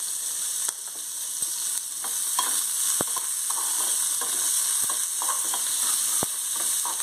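Chopped onions sizzling in hot oil in a steel pan, stirred with a metal spatula that clicks and scrapes against the pan now and then.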